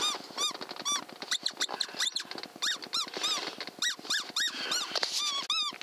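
Predator call for foxes squeaking: a rapid series of short, high, squealing notes, each rising and falling in pitch, about two to three a second.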